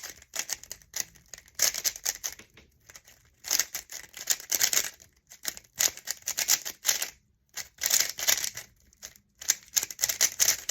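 HuaMeng YS3M 3x3 speedcube (MoYu's UV-coated ball-core version) turned fast during a timed speedsolve: rapid runs of clicking, clacking layer turns, broken by a few short pauses.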